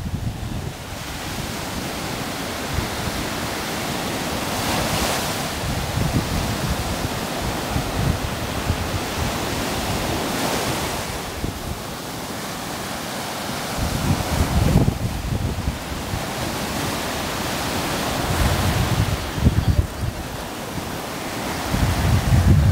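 Sea surf breaking and washing up a sandy beach, swelling every few seconds as each wave comes in. Wind buffets the microphone in low gusts, more heavily in the second half.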